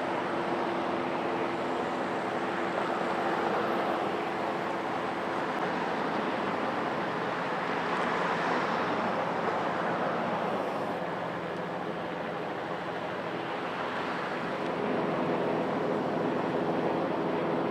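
Turbine helicopter in flight, a steady rushing rotor and engine noise with a few held tones underneath that fade out midway and come back near the end.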